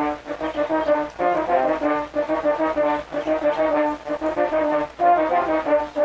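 A quartet of French horns playing a lively tune together in harmony, mostly short, detached notes in a quick rhythm.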